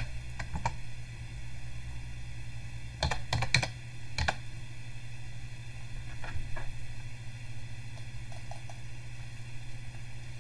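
Computer keyboard being typed on in short, irregular bursts of keystrokes, with a quick cluster of keys about three seconds in and a few more around six seconds. A steady low hum runs underneath.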